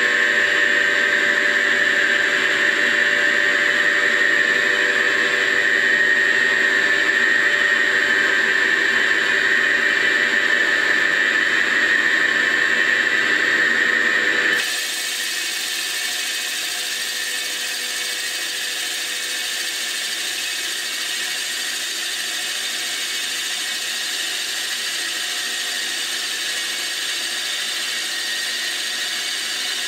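CNC mill boring a cylinder in a Lotus 910 aluminium engine block: a steady machining whine with a high singing tone. About halfway through the tone stops abruptly and a quieter, steady hiss carries on while coolant mist sprays over the bore.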